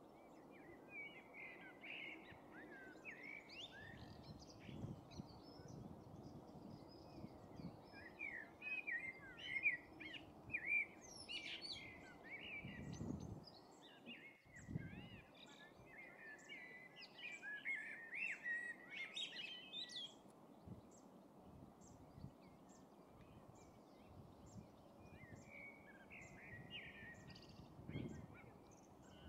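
Small songbirds chirping and twittering in quick runs of short notes, busiest in the middle, over a few faint low rumbles.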